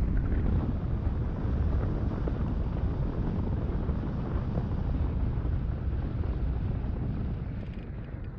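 Wind rushing over the microphone of a small aircraft gliding in with its engine dead, with no engine note heard; the rush eases off near the end.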